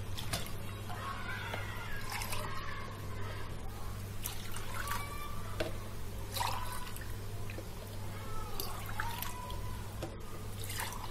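Water poured from a drinking glass into a saucepan of sugar several times, splashing and dripping as the sugar syrup is started. A low steady hum runs underneath.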